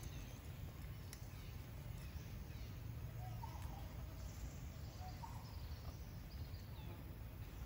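Outdoor forest ambience: a steady low rumble with faint, scattered bird chirps.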